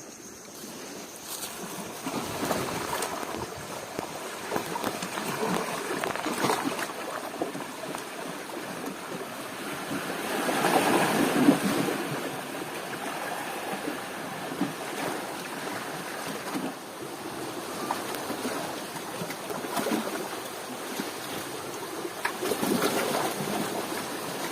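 Sea waves washing in, rising and falling in slow surges, the biggest about eleven seconds in.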